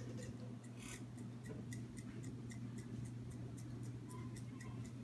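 Red pepper chili flakes being ground from a small spice grinder over a bowl: a steady run of crisp, evenly spaced clicks, about four a second, starting about a second in.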